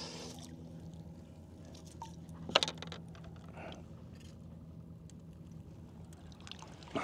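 Water sloshing at the side of a boat, with one sharp splash about two and a half seconds in and a smaller one a second later, over a steady low hum.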